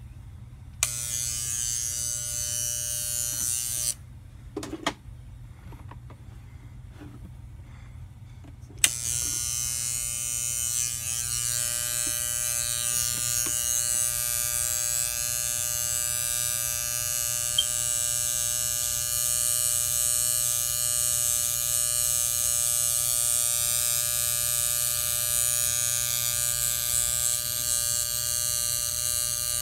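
Electric hair clippers cutting hair along the hairline at the forehead: switched on with a click about a second in, running for about three seconds and switched off, then switched on again with a sharp click about nine seconds in and running steadily with an even hum.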